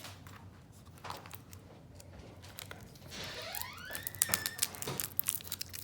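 Plastic-wrapped webcam and its packaging being handled: scattered small clicks and crinkles, with one brief rising squeak about three seconds in.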